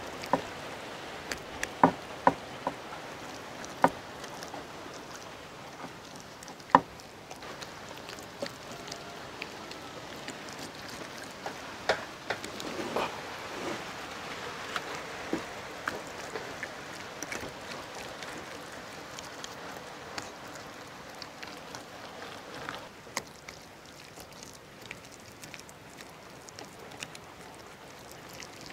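Hands rubbing thick, wet masala paste into a whole raw goat carcass: wet squelching and smearing, with scattered sharp slaps of hand on meat.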